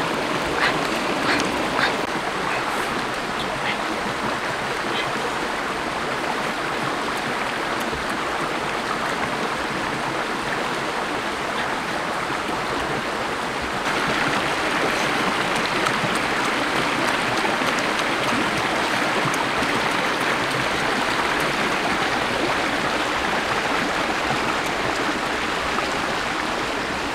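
Shallow stream running over rocks: a steady rush of water that gets a little louder about halfway through. A few faint light clicks sound over it in the first few seconds.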